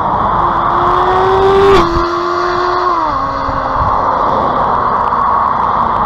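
A 2019 Honda CB650R's inline-four engine pulling hard through its stock exhaust. Its pitch climbs for about two seconds, drops sharply with a click, holds, then falls again about a second later before settling into a steady run.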